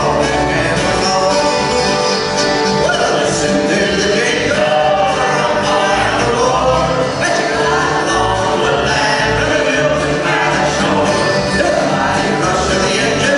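Live acoustic country band playing: acoustic guitars and an accordion, with several men's voices singing together.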